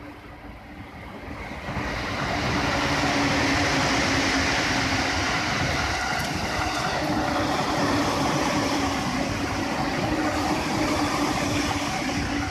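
A train running on a nearby track out of view: a loud, steady rushing rumble with a low hum that swells up about two seconds in and holds, easing slightly near the end.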